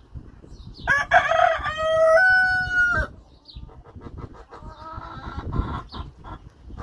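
Rooster crowing once, about a second in: a loud call of about two seconds with stepped notes, ending on a long held note. Softer, shorter clucking calls from the hens follow.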